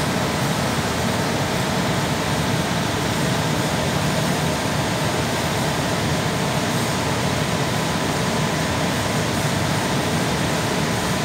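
Floor-standing 20 HP air conditioner's blower fan running steadily: a constant rush of air with a faint steady whine. The compressor is not yet running, so only the fan is heard.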